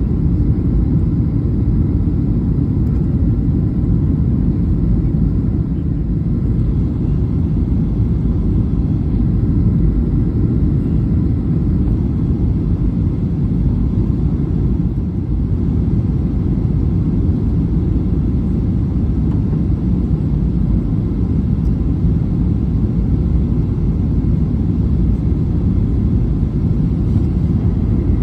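Steady low rumble of cabin noise inside a Boeing 737-800 on its descent to land, the engines and rushing air heard from a window seat over the wing.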